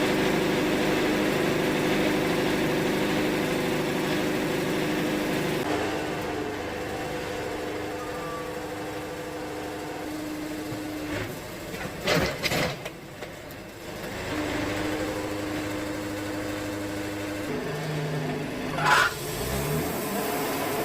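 Wood-Mizer portable sawmill's engine running steadily, its tone shifting a couple of times, with a few sharp knocks about twelve seconds in.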